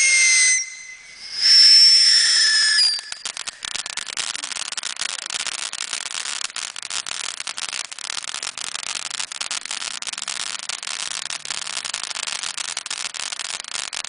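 Fireworks: two loud, shrill whistles with slightly falling pitch, then a long run of rapid crackling pops.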